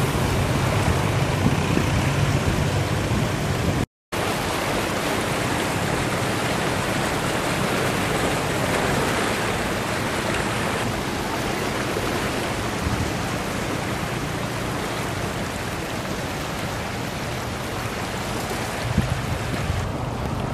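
Floodwater rushing and splashing as vehicles drive through it across a flooded road, a steady wash of water noise with a low hum underneath. The sound cuts out completely for a moment about four seconds in.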